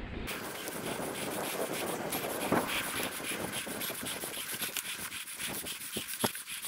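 Mountain bike tyres rolling over a sandy dirt track: a steady gritty crunch with many small clicks and rattles from the bike.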